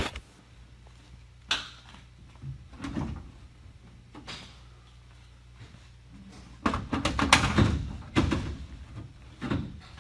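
Knocks and clattering from hands working on a race car to get a cap off, scattered at first, then a louder, denser run of clatter about seven to eight seconds in, over a low steady hum.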